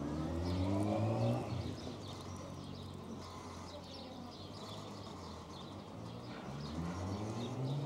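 A street-cleaning vehicle's engine running, its pitch sliding up and down, loudest in the first second or so and again near the end. Small birds chirp throughout.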